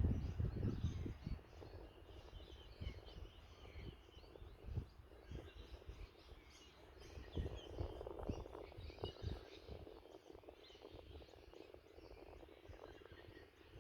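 Rural outdoor ambience: wind buffeting the microphone in gusts, strongest at the start and again about eight seconds in, under scattered small bird chirps throughout.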